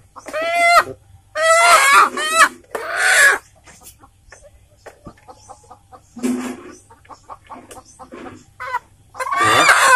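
Village chickens (ayam kampung) squawking and clucking as they are handled, in loud clusters of calls through the first few seconds and again near the end, with quieter, scattered clucks in between.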